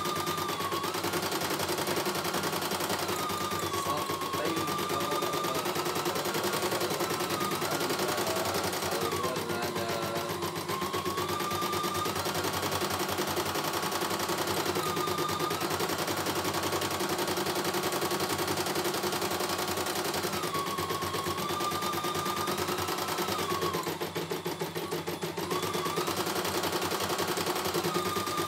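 CNY E900 computerised embroidery machine stitching a design on a test run: a rapid, even clatter of needle strokes over a motor whine that shifts up and back down in pitch every few seconds as the hoop moves.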